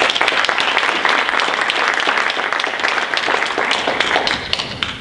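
Audience applauding: many hands clapping at once, fading away near the end.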